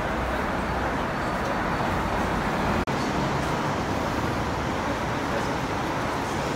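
Steady city street noise: traffic with a background of people's voices. The sound drops out for an instant about three seconds in.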